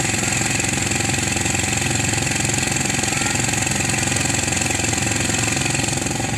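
Rice thresher running steadily: a constant engine drone under a dense, even hiss.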